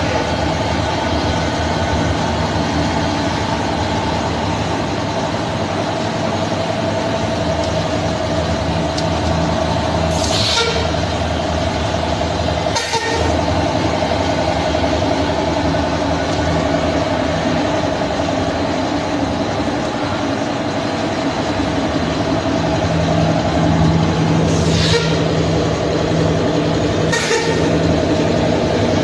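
Waste-paper egg tray moulding machine running with a steady mechanical hum. Four short hisses of air break through, two about a third of the way in and two near the end.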